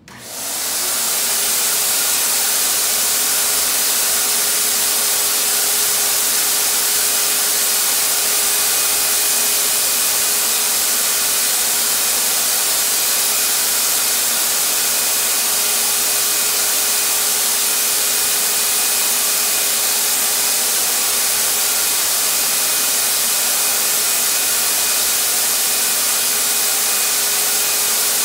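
Harbor Freight HVLP turbine paint sprayer's turbine switched on, spinning up within about a second and then running steadily: a constant whine over a loud rush of air.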